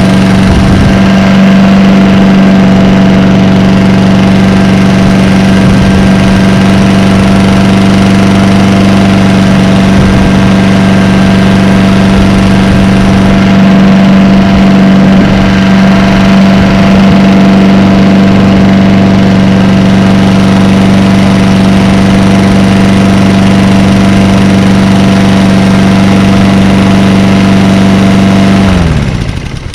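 2007 Lawn-Boy 10695 mower's Honda GCV160 engine running at a steady speed, then shut off near the end, its pitch falling as it dies.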